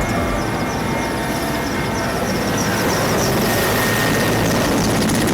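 Helicopter running with a steady, loud engine and rotor noise that grows a little louder about three seconds in.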